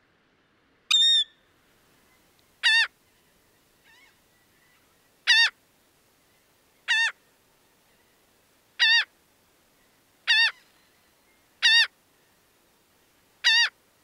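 Laughing gull calling: eight short single calls, one every one and a half to two seconds. The first call is higher-pitched than the seven that follow, which sound alike.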